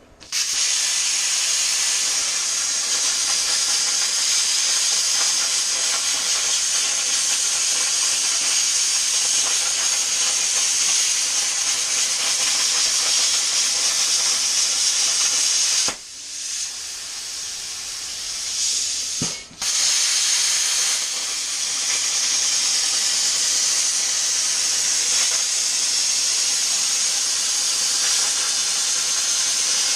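Hypertherm Powermax plasma cutter's arc hissing steadily as the CNC torch cuts. It starts a fraction of a second in, weakens about 16 seconds in, cuts out briefly near 19 seconds and then fires up again.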